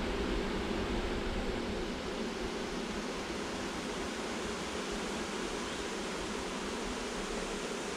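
Honey bee swarm humming steadily at close range as the bees walk into a hive box, a dense even drone.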